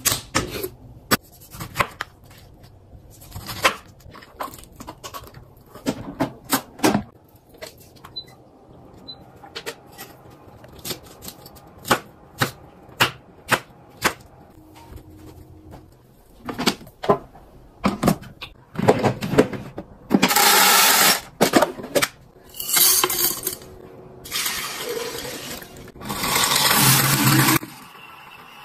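Kitchen knife chopping green peppers on a plastic cutting board, irregular sharp knocks a few a second at most, with the board set down on the counter at the start. About two-thirds in comes a loud steady rushing noise in three stretches of one to three seconds each, stopping shortly before the end.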